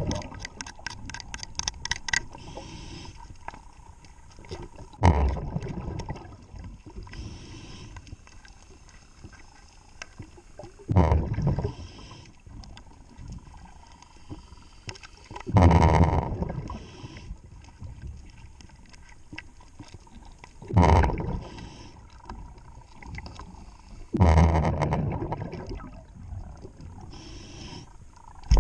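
Scuba diver breathing underwater through a regulator: a rush of exhaled bubbles about every five seconds, five times, with quieter hiss between breaths. A run of rapid clicks sounds in the first two seconds.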